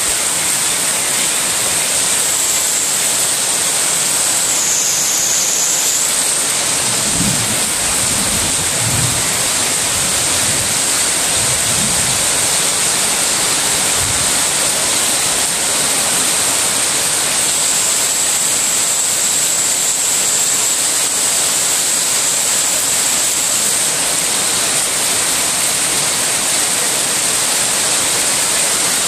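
Heavy rain pouring steadily, splashing on the water of a rockery pond basin and on broad leaves.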